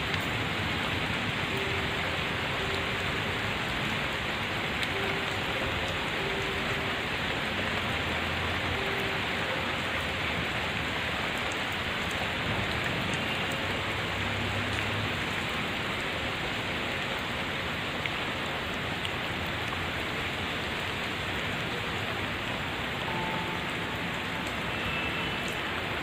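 Steady rain falling on palm fronds, trees and lawn: an even hiss that keeps up at the same level throughout.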